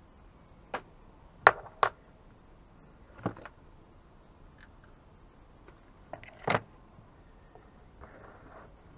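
Irregular sharp knocks and clicks of hand tools and chainsaw parts being handled and set down on a workbench, the loudest about a second and a half in, with a brief soft rustle near the end.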